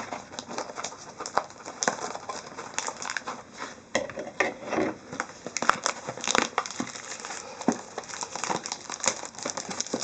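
Plastic packaging of a sealed trading-card box crinkling and crackling as it is pulled and worked open by hand, in irregular bursts of rustling.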